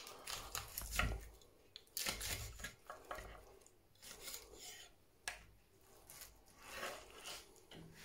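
Faint, irregular crackling and rubbing of a roast pheasant being pulled apart by hand on a wooden board, its crisp roasted skin crackling as the joints are broken.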